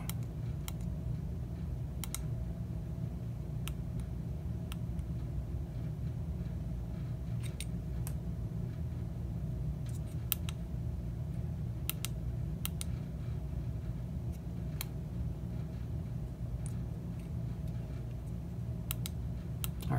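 Small tactile push buttons on a DIY LED clock kit board clicking now and then as they are pressed, a dozen or so sharp clicks at irregular intervals, over a steady low hum.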